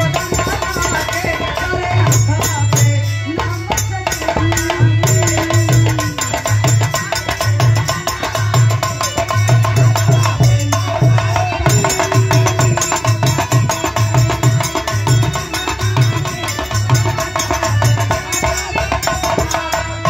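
Loud music with a steady, regular drum beat and held melody notes over it.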